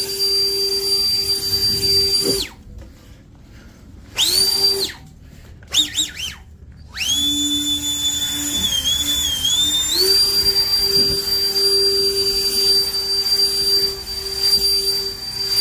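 Electric power tool motor whining in several runs of a few seconds, stopping and starting again. The last and longest run starts at a lower speed and steps up to a higher pitch partway through.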